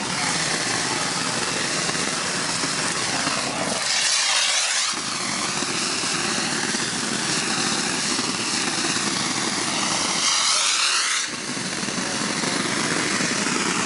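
A machine engine running steadily, its sound shifting and sweeping twice, about four and ten seconds in.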